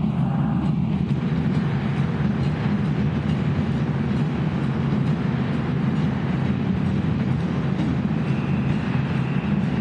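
Steady din of a large, packed crowd filling a stone-walled rotunda, a continuous roar with no single voice standing out.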